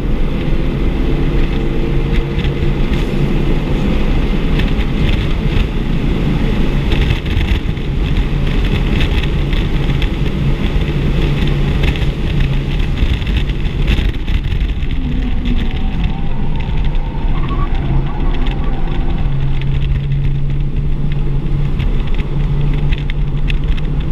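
Audi RS3's turbocharged 2.5-litre five-cylinder engine pulling hard under full acceleration, heard inside the cabin over heavy wind and road noise. In the second half the car brakes hard, and the engine settles to a steady low drone near the end.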